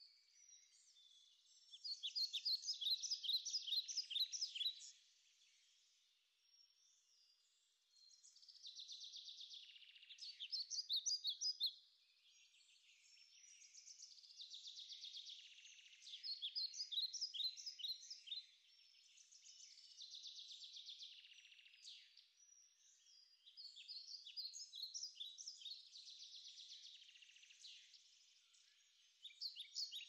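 A songbird singing: repeated high phrases a few seconds long, each a quick run of notes, coming about every five seconds with quieter gaps between.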